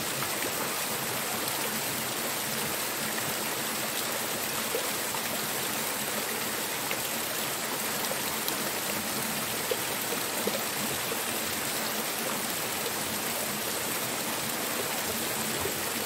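Steady rush of a small waterfall over rocks, with water pouring from a pipe spout into the stream. A few faint clicks sound now and then.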